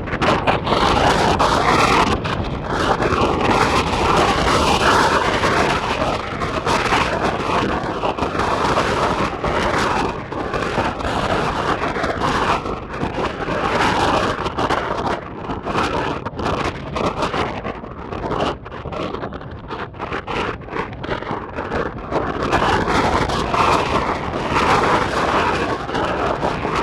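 Strong gusty wind buffeting the microphone: a loud, uneven rushing that swells and dips.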